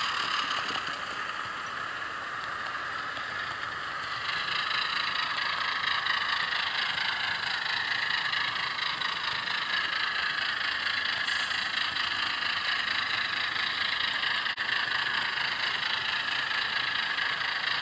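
Alco HH660 diesel engine sound from an ESU LokSound 5 sound decoder, played through a model locomotive's small speaker as the engine runs under load. It eases off slightly, then grows louder about four seconds in: the decoder's dynamic sound control follows the changing load on the train.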